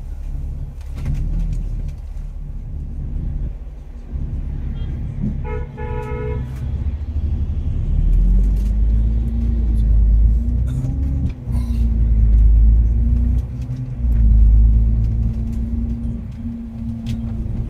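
Bus engine rumbling, heard from on board; from about seven seconds in its note climbs in steps as the bus pulls away and accelerates, then holds steady. A vehicle horn toots briefly about five seconds in.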